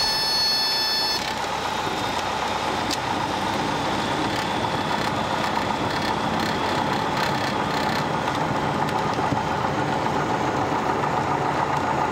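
Piper PA-28 Warrior's four-cylinder Lycoming engine and propeller running steadily at low power, heard from inside the cockpit as the aircraft rolls along a wet runway. A steady high tone sounds for about the first second, then stops.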